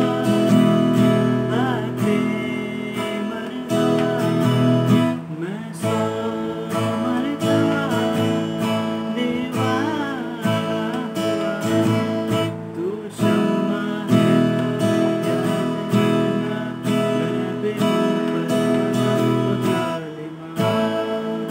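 Acoustic guitar strummed by a learner practising a song, chords ringing, with a few short breaks between phrases.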